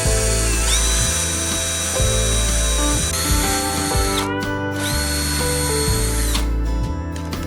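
A power tool's electric motor whining. It spins up about a second in, winds down about four seconds in, spins up again about a second later and runs down shortly before the end. Background music plays throughout.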